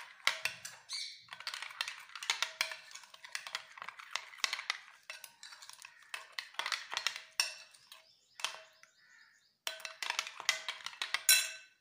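Metal spoon scraping and clicking against a ceramic bowl as a thick yogurt-and-spice marinade is stirred, in quick continuous strokes with a brief lull about two-thirds of the way through.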